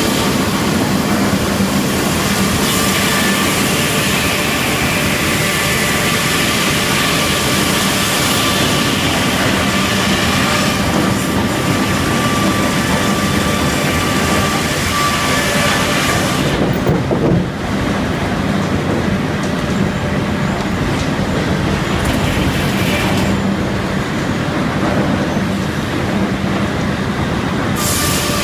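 Helle circle sawmill running at work on a large Douglas fir log, a loud steady mechanical din with a low hum and a ringing whine. The bright hissing top of the sound drops away for a moment about two-thirds of the way in, and again for several seconds near the end.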